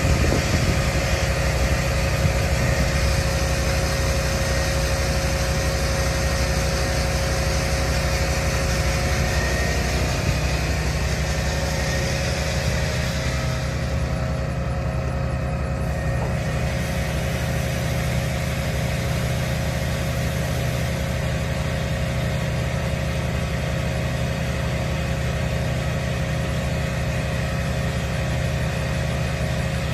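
Farm tractor's diesel engine running steadily at constant speed: a low, even drone with a faint steady whine above it.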